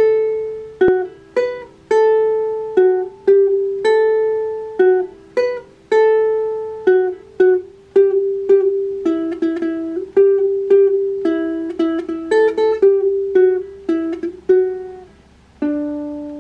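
Makala ukulele picked note by note, playing a melody where each plucked note rings and fades, ending on a lower held note.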